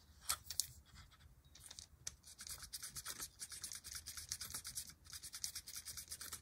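A pen-style scratch brush scrubbing the wheel treads of an upside-down Tyco HO-scale locomotive to clean grime off them: faint, quick scratching strokes, a few at first and coming rapidly from about a second and a half in.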